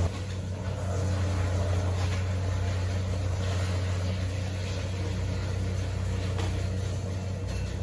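A steady low engine drone, unchanging in pitch.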